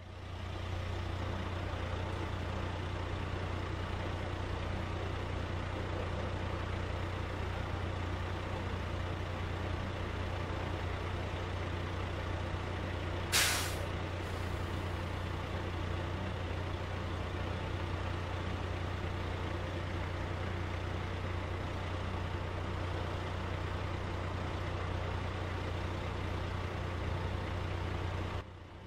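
Steady low hum of an idling engine, with one short, loud hiss of released air about halfway through, like a truck's or bus's air brake.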